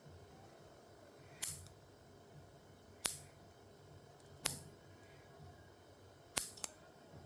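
Nail clippers snapping through nails: five sharp clicks about a second and a half apart, the last two in quick succession.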